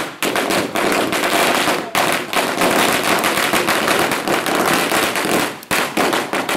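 Firecrackers bursting on the ground in rapid, nearly unbroken succession, a dense crackle of sharp bangs with a brief lull about five and a half seconds in.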